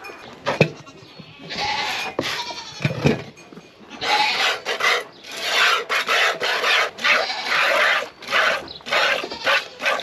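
A goat being hand-milked: milk squirting from the teats into a stainless steel pail in short hissing squirts, about two a second, starting about four seconds in. Before that, a few scattered knocks.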